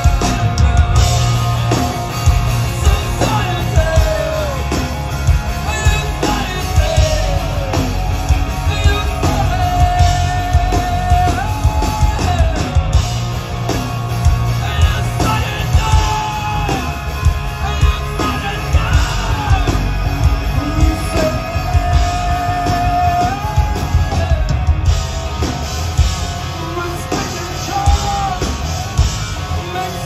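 Live post-hardcore rock band playing through a festival PA, heard from the crowd: drums, bass and distorted electric guitar under a male lead vocal that holds long sung notes.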